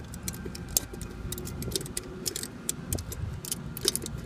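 Irregular light metallic clicks and ticks of a wrench turning a nut on a terminal block in an HVAC unit's electrical panel, over a low, steady background rumble.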